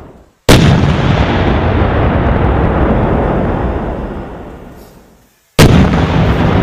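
Two loud booms about five seconds apart, each starting sharply and trailing off in a long rumble over about four seconds.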